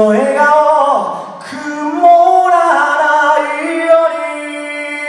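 A man singing unaccompanied into a microphone, sliding between notes and then holding one long note from about three seconds in.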